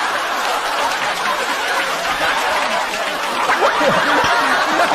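Live comedy audience laughing together as a reaction to a joke, a dense crowd laugh with a few individual laughs standing out about three and a half to four and a half seconds in.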